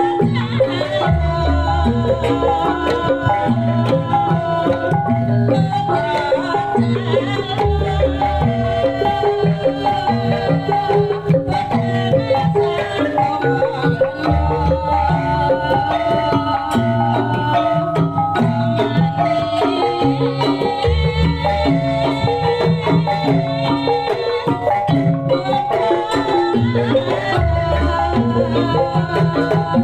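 Javanese kuda lumping music: hand drums and pitched melodic percussion playing a steady cycle, with a deep low stroke returning about every six and a half seconds.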